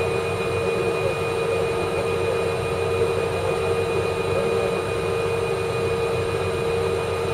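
Osaka Municipal Subway 21 series train standing at a station, its onboard equipment giving a steady hum with a constant mid-pitched tone.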